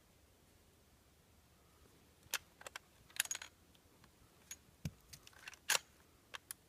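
Small metallic clicks and rattles of a Sako Forester .243 bolt-action rifle as the trigger is pulled and it misfires, with no shot going off. The clicks come singly and in a short cluster, starting about two seconds in.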